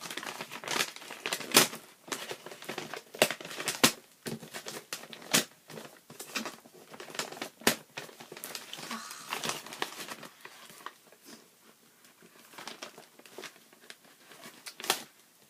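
Packing material crinkling and rustling in irregular crackles as a parcel is unwrapped by hand, busiest in the first ten seconds and sparser and fainter after.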